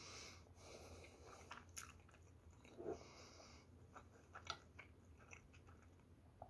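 Faint chewing of a mouthful of fried rice, with a few light clicks of a metal fork against the plate as the next forkful is scooped up.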